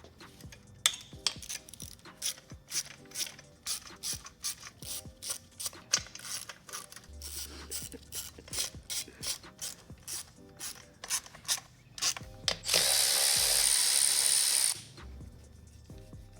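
A 1/4-inch hand ratchet clicking in quick strokes as bolts on the engine are loosened. Near the end a louder steady hiss runs for about two seconds and then cuts off.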